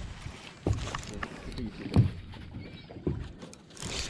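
Irregular low thumps and knocks on a small fishing boat, about five over a few seconds, over water and wind noise, with a brief rush of hiss near the end.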